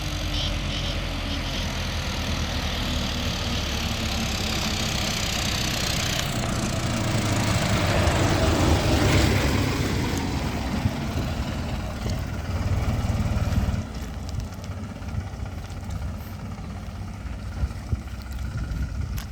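Diesel tractor engine running steadily, swelling louder about halfway through and dropping off noticeably about two-thirds of the way in.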